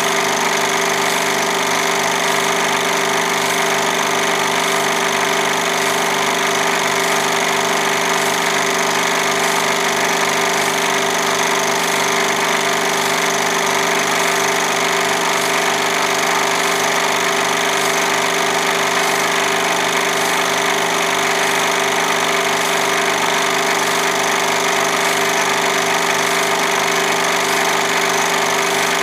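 Film projector running: a steady mechanical whir with an even, rhythmic clatter from the mechanism, unchanging throughout.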